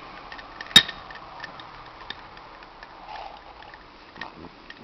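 A metal spoon clinks sharply once against a drinking glass about a second in, followed by a few faint small ticks.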